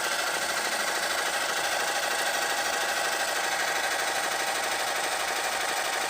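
Portable power-bank-powered air compressor running steadily with a fast buzzing rattle, pumping air into a ball.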